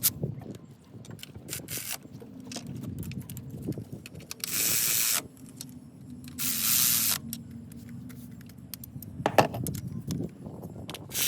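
Tools working on the ignition coil pack bolts of an engine: scattered metallic clicks and clinks, with two short, loud bursts of rushing noise at about four and a half and six and a half seconds in.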